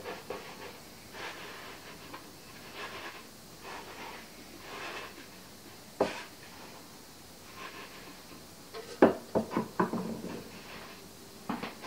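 Hands shaping balls of bread dough on a floured wooden board: soft rubbing and scuffing, a single knock about halfway, and a quick run of thumps near the end as the rolls are pressed flat against the board.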